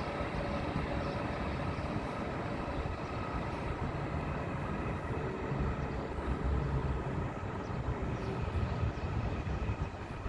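TCDD E23000 electric multiple unit running along the track, a steady rumble.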